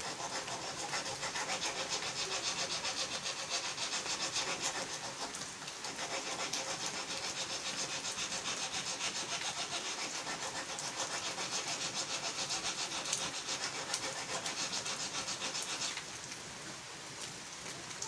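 Hand metal file rasping along a multitool's blunt knife blade in quick, even back-and-forth strokes, sharpening the edge. The filing dips briefly about five seconds in and stops about two seconds before the end.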